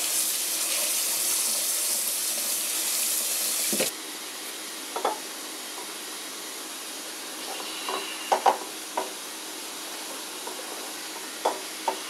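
Kitchen tap running water over a raw whole chicken in a stainless steel sink: a steady hiss that cuts off suddenly about four seconds in. After that, a few light knocks and clicks as the chicken is handled in a glass bowl.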